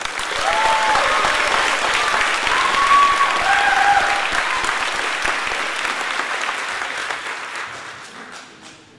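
Audience applauding a graduate as she receives her diploma, with a few short cheers over it; the clapping dies away over the last second or two.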